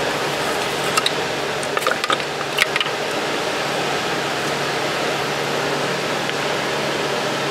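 Hands rummaging in a bowl of water and stainless steel tumbling pins, giving a few small clinks and splashes between about one and three seconds in, over a steady fan-like hum.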